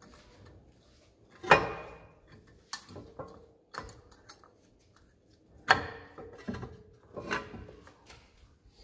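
New brake pads' metal backing plates clicking and knocking against a Mercedes brake caliper as they are pressed into place by hand: about five sharp knocks, the loudest about one and a half seconds in and just before six seconds, with light rattling between.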